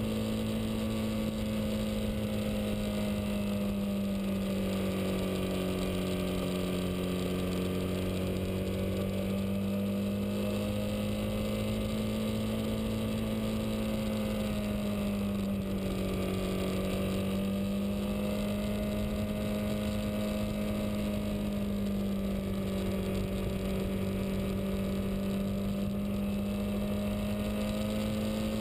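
Motorcycle engine running steadily at cruising speed, with low wind rumble. Its pitch eases down and back up a few times, most noticeably about a third of the way in and past the halfway mark.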